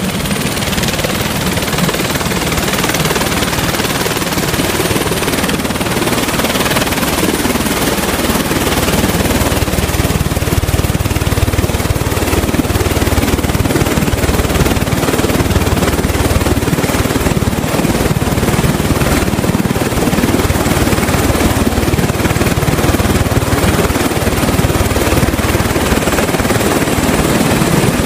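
Helicopter running close by: a loud, steady rotor and engine noise. Its low rumble grows heavier about nine seconds in.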